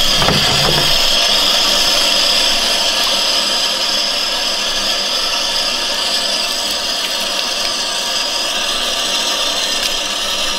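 Bathtub faucet running steadily, its stream splashing into the tub and into the open filler of a pump-action water gun being filled under it.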